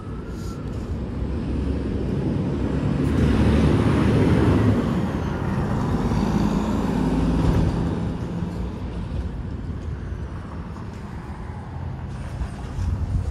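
Semi-trailer truck passing through the intersection ahead, its diesel engine rumble building to a peak a few seconds in and fading after about eight seconds.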